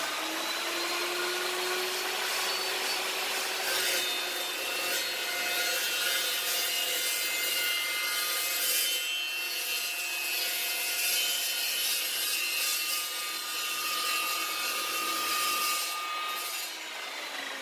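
Evolution chop saw cutting through inch-and-a-half galvanized steel pipe: a steady grinding cut, with a whine from the spinning blade. Near the end the cut finishes and the motor winds down.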